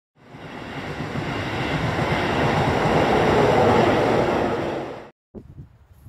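Keisei Electric Railway train passing over a level crossing: a loud, rushing rumble that builds to its loudest about four seconds in, mixed with wind on the microphone. It cuts off abruptly about five seconds in, leaving only faint scattered sounds.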